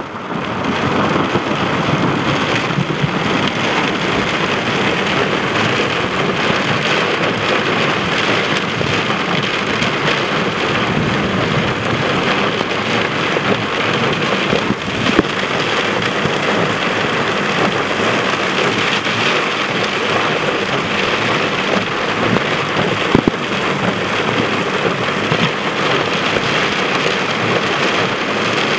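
Heavy thunderstorm rain pouring down in a steady, dense hiss, with a couple of brief sharp taps about halfway and again later.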